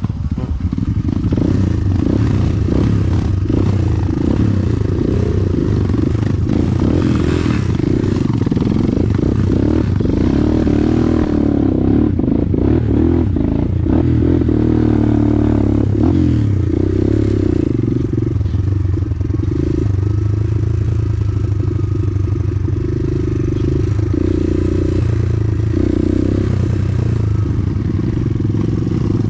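A motorcycle engine running under way, with frequent knocks and rattles over rough ground.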